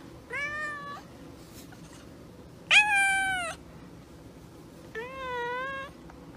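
Domestic cat meowing three times, each call under a second long, the middle one the loudest.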